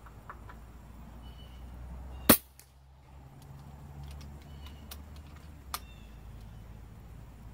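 A single shot from a .22 calibre FX Crown MKII PCP air rifle: one sharp crack a little over two seconds in. A few faint ticks follow, and a smaller click about three and a half seconds later as the action is worked for the next shot.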